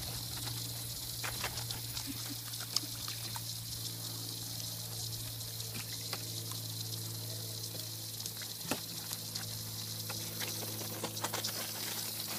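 Puppies wading and scrambling in a plastic kiddie pool: water sloshing, with scattered small splashes and patters over a steady hiss. A low steady hum runs underneath.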